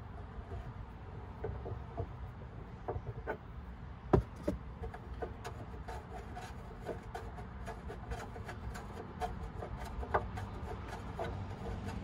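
Tire tool turning a bolt counterclockwise to loosen it: scattered light clicks and scraping of metal on the bolt, with a louder knock about four seconds in.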